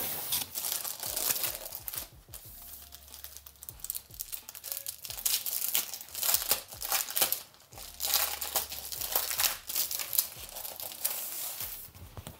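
Plastic packaging crinkling and rustling in irregular bursts as it is handled and unwrapped.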